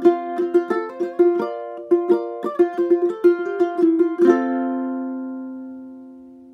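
Maton blackwood tenor ukulele tuned fCFG, played clawhammer style: quick plucked notes in a steady rhythm, then a final chord about four seconds in that rings out and slowly fades.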